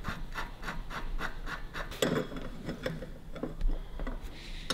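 Steel lock nut spun by hand down the threaded end of a Harley-Davidson WLA seat post spring rod, metal threads rasping in quick even strokes, about five a second. About two seconds in a clunk, then scattered light knocks of metal parts being handled.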